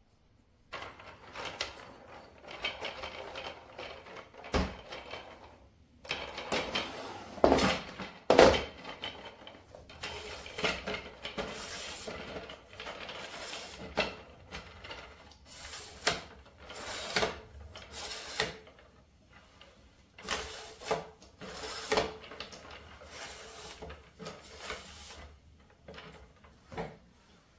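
Wooden arms of a folding octopus-style clothes drying rack being pulled out of its central stand and swung open: repeated wooden knocks and clacks with scraping and rubbing. The loudest knocks come about 8 seconds in.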